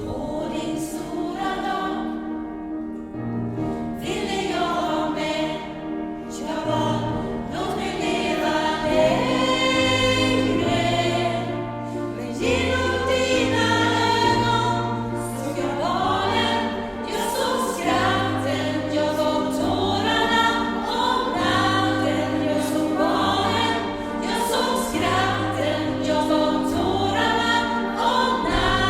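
Gospel choir singing together in several parts, over low held notes that change every second or two.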